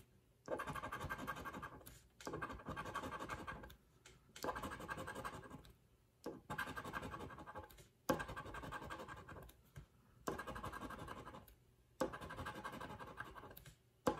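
A round coin-like token scraping the coating off a paper lottery scratch-off ticket, in seven bursts of about a second and a half each with short pauses between.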